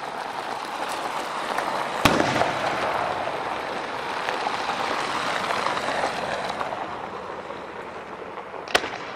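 Fireworks: a sharp bang about two seconds in and another near the end, with a steady rush of noise in between.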